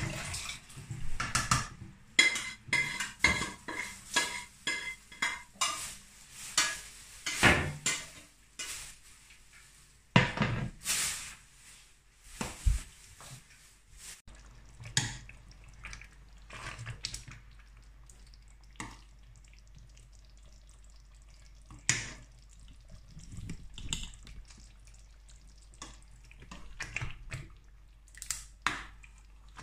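Stainless steel cooking pots clanking and a spoon scraping against metal as chicken stock is tipped from one pot into a pot of tomato stew. From about halfway, a spoon stirring the thick stew, with occasional knocks against the side of the pot.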